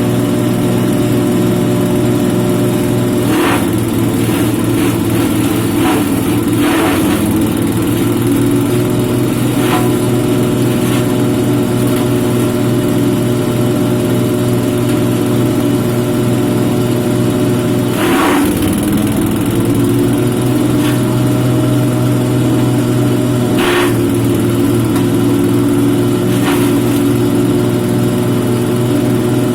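Grass-chopper machine running at a steady speed. Several short rasping bursts, about seven, sound over it as grass is fed through the blades.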